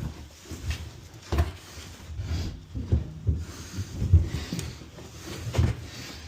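Irregular low thumps, knocks and scrapes of heavy furniture and a dolly being shifted and pushed into place.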